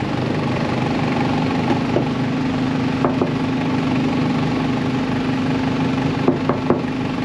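A car engine idling steadily, with a few light clicks near the end.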